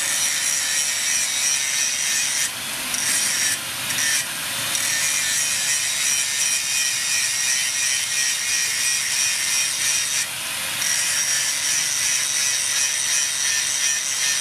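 Angle grinder with a sanding disc grinding the steel head of a hammer made from rebar: a steady abrasive rasp over the grinder motor's hum. The rasp eases briefly a few times as the disc lifts off the metal.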